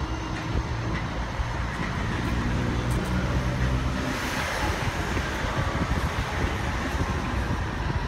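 A Gold Coast G:link light-rail tram, a Bombardier Flexity 2, pulling away from the stop and gliding past. Its electric drive gives a low hum with a few steady tones, and the wheels on the rails give a brief hiss as the cars go by about halfway through.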